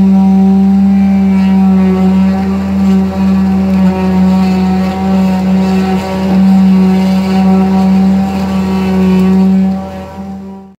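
Electric concrete vibrator running steadily, a loud hum with a string of overtones, as its wand settles freshly pumped concrete in the wall form. The hum dips briefly near the end.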